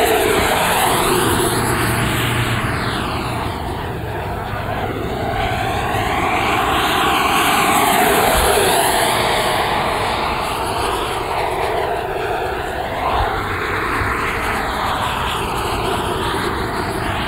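Electric ducted-fan jet sound of a Freewing Avanti RC jet's WeMoTec 80 mm 11-blade fan: a steady rushing noise that swells and fades as the jet flies past, loudest about eight seconds in.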